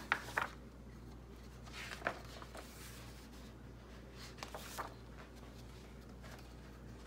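Pages of a large glossy booklet being turned by hand: a few brief paper rustles and light taps, over a low steady hum.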